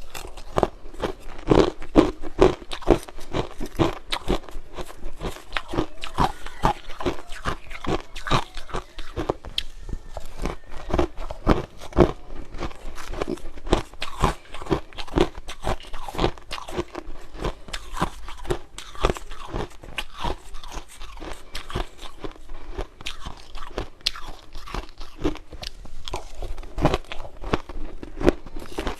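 A person chewing crunchy food: dense, irregular crunches without a break.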